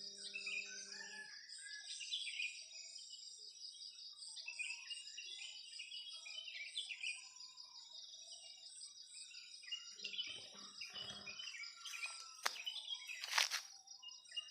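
Morning birdsong: many short bird chirps and calls over a steady, high, pulsing insect drone. Two sharp noises near the end stand out above them.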